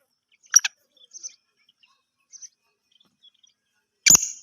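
Partridges (teetar) calling: a sharp double chirp about half a second in, a few faint high chirps, then a loud, harsh call starting near the end.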